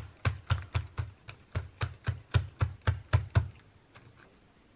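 Paint dauber dabbed repeatedly through a plastic stencil onto a paper journal page: a run of quick taps, about four a second, that stops about three and a half seconds in.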